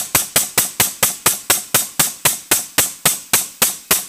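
Air-over-hydraulic pump of an exhaust pipe expander cycling at about four strokes a second, each stroke a sharp knock, as it drives the ram out into 0.065-inch wall exhaust pipe. The pace of the pumping is the sign of how hard the tool is working: it pumps slower as the ram nears its limit.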